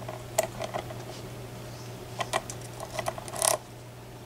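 Small metallic clicks and taps of lock-picking tools being handled, as a tension wrench that slipped out of the lock is picked up and readied to go back into the keyway. A few clicks come about half a second in and a quicker cluster near the end, over a steady low hum.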